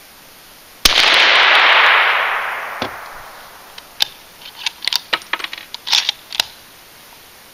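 A single shot from a suppressed .308 bolt-action rifle firing standard supersonic ammunition: a sharp report about a second in, trailing off over about two seconds. It is followed by a run of metallic clicks and clacks as the bolt is worked to eject the case and chamber the next round.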